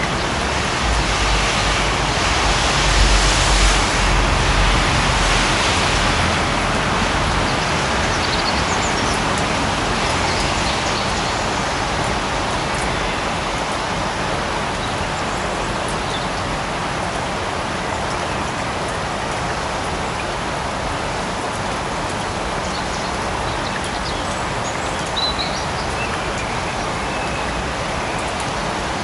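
Steady rain falling in a forest, an even hiss that swells louder for a few seconds near the start with a low rumble under it. A brief high chirp sounds once near the end.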